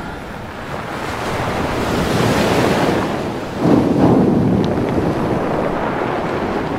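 Storm-at-sea sound effects: wind and surging waves in a steady rush, swelling into a louder wave surge about three and a half seconds in.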